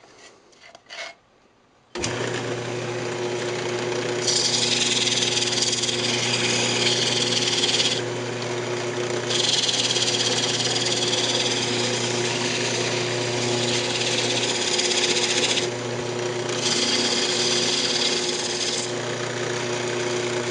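A few faint clicks, then a Delta 46-460 wood lathe switches on about two seconds in and runs with a steady hum. Sandpaper held against the spinning maple hamburger press hisses over it in three long stretches, with short breaks between them.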